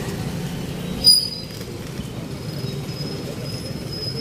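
Steady low traffic rumble, with a short, loud, high-pitched squeal about a second in and a faint thin whine later on.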